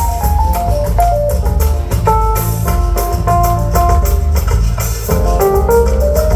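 Live band playing an instrumental passage: a stepping lead melody over bass and drums, with regular percussion hits.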